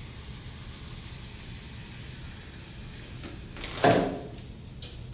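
Liquid nitrogen hissing faintly as it is poured through a funnel into a plastic bottle, then an insulated flask set down with a single loud thump just under four seconds in, followed by a few light taps.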